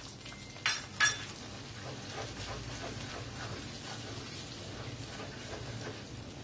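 Wooden spatula knocking twice against a karahi, then stirring a yogurt-and-spice masala that sizzles steadily as it fries in oil.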